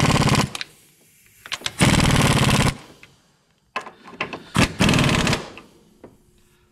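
Impact wrench hammering in three bursts of about a second each, running down and tightening the nuts on an engine mount's studs.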